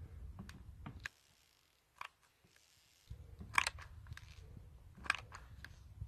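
Handling noise: a few sharp clicks and taps over a low rumble, which drops out for about two seconds after the first second.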